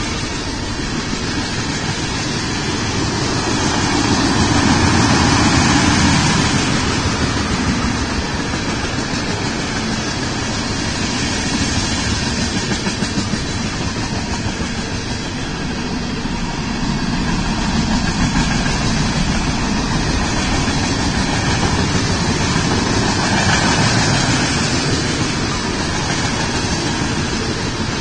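Union Pacific freight train's tank cars rolling past, a continuous noise of steel wheels on rail that swells and eases.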